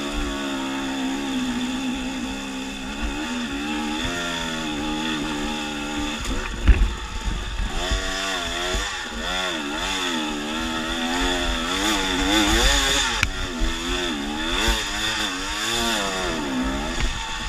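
Dirt bike engine on rocky singletrack, its pitch rising and falling repeatedly as the throttle is worked. There is one sharp knock about seven seconds in.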